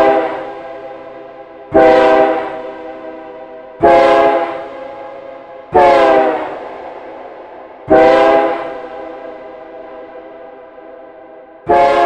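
Train horn sound effect played from a phone app: a multi-tone air-horn chord sounded in short blasts about every two seconds, each starting abruptly and dying away in a reverb tail. One blast sags in pitch as it fades, and after a longer pause a last blast sounds near the end.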